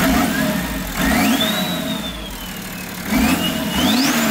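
BMW M57 3.0-litre twin-turbo straight-six diesel blipped several times from idle. Each rev brings in a turbo whistle that climbs quickly and then slowly falls away, the second climbing higher than the first.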